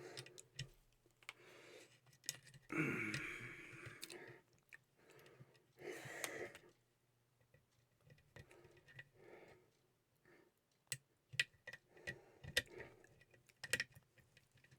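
Faint, scattered clicks and light scrapes of a lock pick and tension wrench working the pins of a challenge lock during single-pin picking. Two louder breathy noises stand out about three and six seconds in.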